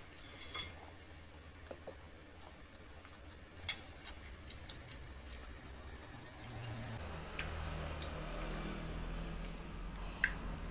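Close-miked eating sounds: wet chewing and lip smacks with scattered sharp clicks, some from metal chopsticks working through the noodles. A low steady hum comes in about seven seconds in.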